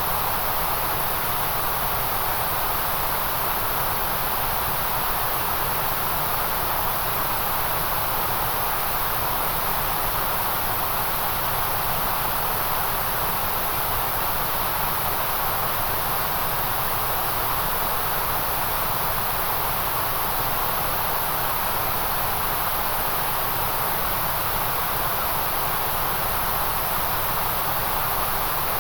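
Steady white noise: an even, unchanging hiss with no rhythm or breaks.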